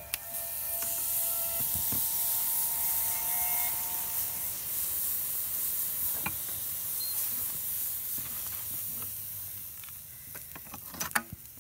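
A melting furnace's burner hissing steadily with flame roaring inside, fading away after about nine seconds. A few sharp knocks sound near the end.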